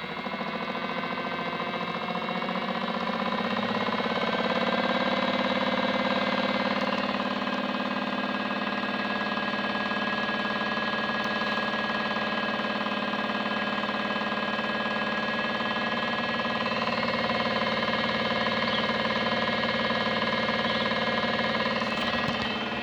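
Modified Miele W1 toy washing machine on its spin cycle: a small electric motor whine that rises in pitch over the first few seconds as the drum speeds up, then holds a steady high pitch.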